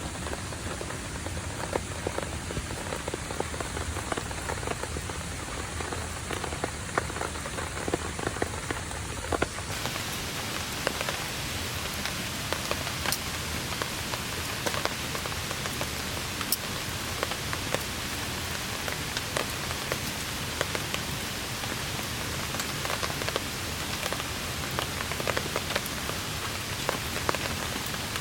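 Steady rain falling on a tarp: a dense hiss dotted with many small sharp drop ticks, turning hissier about ten seconds in.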